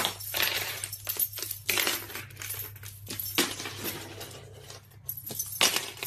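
A small hard object clattering and clinking against a wooden floor in irregular knocks as a caique pushes and tosses it about; a few knocks are much louder than the rest, with a quieter spell about two-thirds of the way through.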